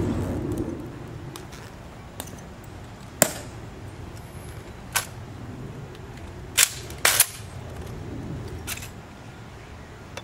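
A handful of sharp, single clacks and snaps, with a quick pair just after the middle, from a ceremonial rifle being slapped and handled during a soldier's rifle inspection.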